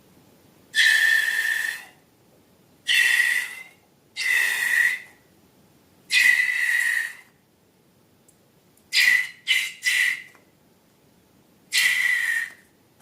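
Seven high-pitched whistling squeals, each holding one steady pitch over a hiss. Four last about a second each, then three come in quick succession about nine seconds in, and a last one sounds near the end.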